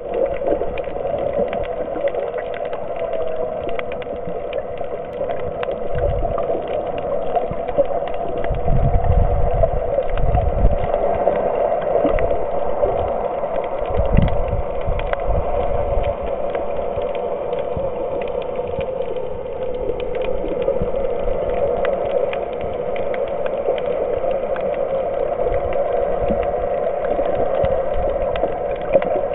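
Underwater sound picked up by a camera's microphone: a steady muffled drone with scattered clicks and crackles, and low rumbling surges of water movement now and then.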